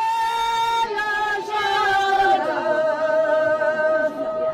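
Singing, in long held notes with a slight waver; the melody steps down to a lower held note a little past two seconds in.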